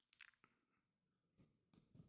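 Near silence: room tone, with a few faint soft clicks.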